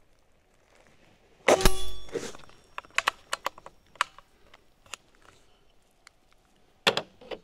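A Benjamin Marauder PCP air rifle fires once about one and a half seconds in, followed by a ringing metal hit on a steel target, the rifle shooting on a nearly empty air tank. Then come a series of light clicks of the bolt and magazine being worked, and a sharp knock near the end.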